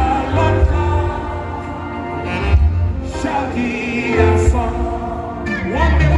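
Gospel worship song: voices singing over instrumental backing with a strong, pulsing bass line.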